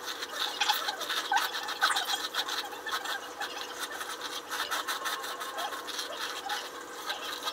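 A hairbrush pulled through wet, conditioned hair in many quick, irregular strokes.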